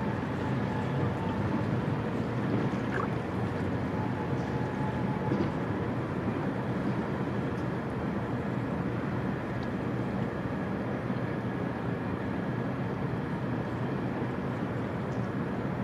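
Steady low rumble of outdoor background noise with a faint hum running through it; the cat's grooming is not audible above it.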